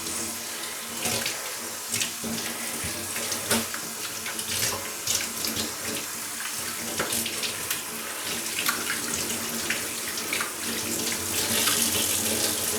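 Water running from a tap into a sink, with irregular splashing as a floor cloth is rinsed and wrung under the stream.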